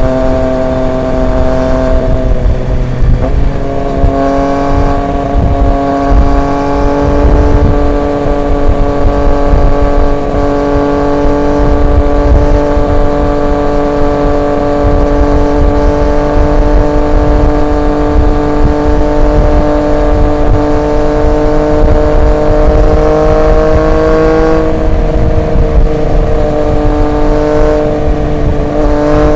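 Triumph Street Triple 765 RX's inline three-cylinder engine running through an SC Project S1 exhaust while riding at speed. The engine note dips about three seconds in, climbs slowly for some twenty seconds, and dips again near the end, over a low rumble.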